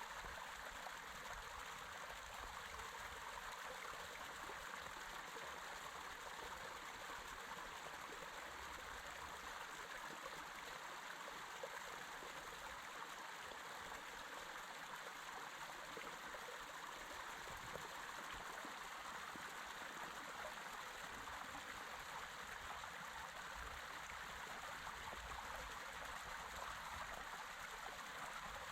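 Creek water running steadily, an even rushing hiss that neither builds nor fades.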